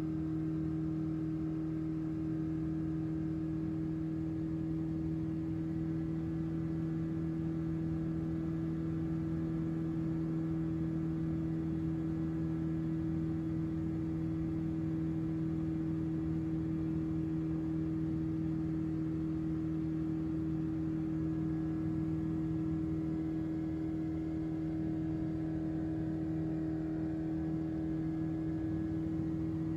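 Light aircraft's engine and propeller droning steadily, heard inside the cabin in level cruise, with an unchanging low hum.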